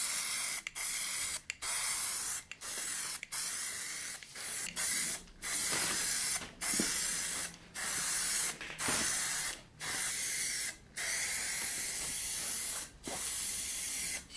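Aerosol can of matt black spray paint, fitted in a trigger handle, hissing in many short bursts with brief pauses between them.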